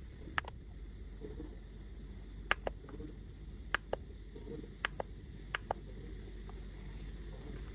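Plastic mouse buttons of a homemade handheld computer clicking, mostly in quick press-and-release pairs, about five times, over a steady low hum.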